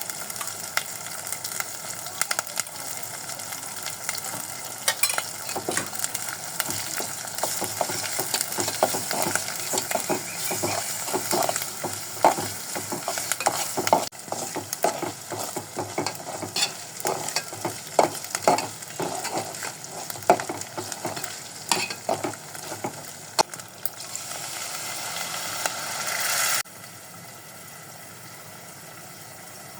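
Curry ingredients sizzling in a hot pan while being stirred, with frequent scrapes and clicks of the spatula against the pan. The sizzling cuts off suddenly near the end, leaving a faint steady hum.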